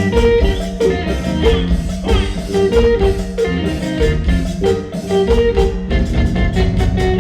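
Live band playing an instrumental passage: a guitar melody over bass and drum kit, with a steady beat.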